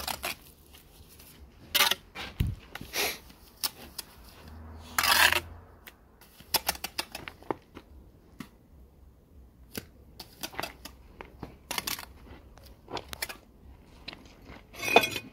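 Steel bricklaying trowel scraping and tapping on bricks and wet mortar, in irregular clicks and short scrapes. The longest scrape comes about five seconds in, with another loud one near the end.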